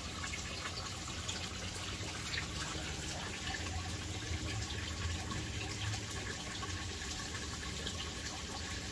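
Water running in a 1.5-inch aquaponics U-siphon as the grow bed's siphon reservoir fills toward the point of initiation, with water starting to come out of the pipe. A steady, even hush of water with a low hum underneath.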